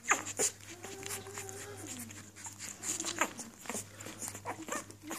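Newborn puppies whimpering and squeaking, with one longer whine that sinks in pitch about a second in. Short clicks and smacks sound among the cries, the loudest right at the start.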